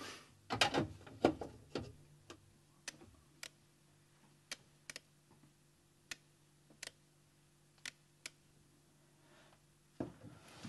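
A quick flurry of sharp knocks and clicks, then single sharp clicks at uneven intervals about once a second, over a low steady hum; a louder burst of noise begins near the end.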